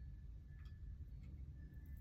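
A metal screw hook being turned by hand into pre-drilled wood, faint: a few light ticks and a thin squeak that comes and goes, over a low room rumble.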